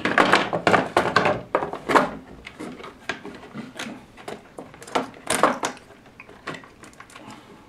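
Irregular clicks, taps and knocks of hard plastic parts being handled on a wooden workbench while a panel switch is worked out of a plastic controller enclosure. The knocks come thick and louder in the first two seconds, then thin out to scattered clicks.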